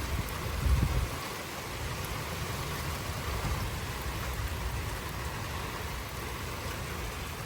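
Steady heavy rain pouring during a thunderstorm, with a brief low rumble of wind buffeting the microphone about a second in.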